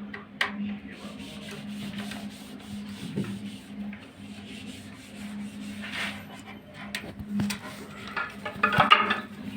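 Hands handling and rubbing booster pump parts, scraping with a few clicks, over a steady low hum.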